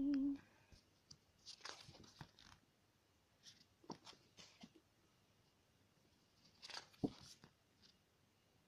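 Stiff card postcards being handled and flipped through by hand: three short bursts of paper rustling and light card-on-card slides and taps, with quiet between them.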